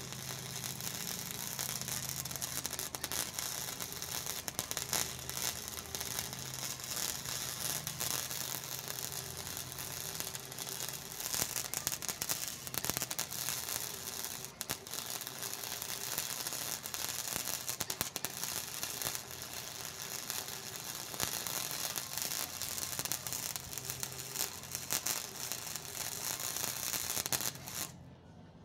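Wire-feed welder arc crackling and sputtering steadily with a constant stream of small pops as a bead is laid, throwing a lot of spatter. The arc cuts off abruptly near the end.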